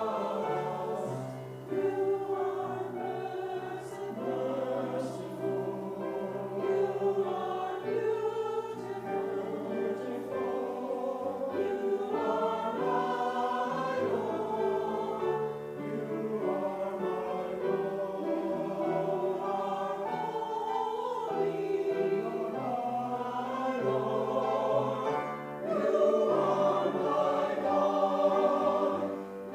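A choir of voices singing together, moving from note to note, with short pauses between phrases.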